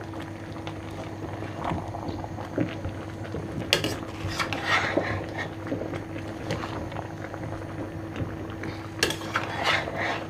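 Cutlery and dishes clinking now and then, with a couple of sharper clinks, over a steady low hum.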